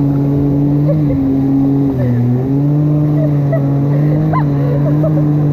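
Jet ski engine running at a steady high throttle while towing a rider, with a brief dip in revs about two seconds in before it picks back up.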